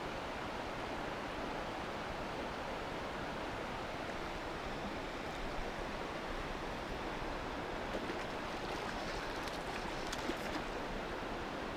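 Steady rush of flowing river water, with a few faint ticks and rustles in the last few seconds.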